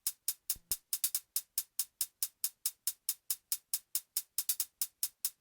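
Sparse electronic dance-track intro: a drum-machine hi-hat ticking steadily, about four to five ticks a second, with two short kick-drum thumps about half a second in.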